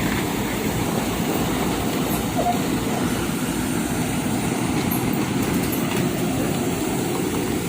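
Heavy diesel machinery running steadily under load: the excavator and the stuck tronton truck working through the tow.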